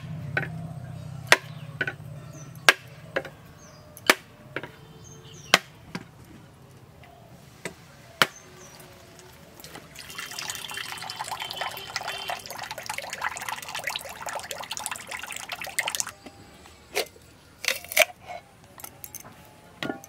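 A mature coconut struck with a heavy curved chopper blade to crack its shell: sharp knocks about every second and a half. About ten seconds in, coconut water pours from the cracked nut into a small bowl for some six seconds, followed by a few more knocks as the shell is split.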